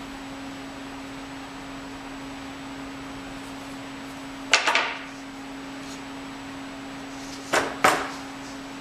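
Drilled plywood boards knocking against each other and the workbench as they are handled and stacked: a sharp wooden clatter about halfway through and two quick knocks near the end, over a steady hum.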